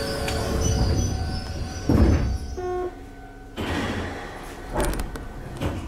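Electric commuter train's sliding doors shutting with a thud about two seconds in, followed by a few short electronic tones, over the train's steady background noise.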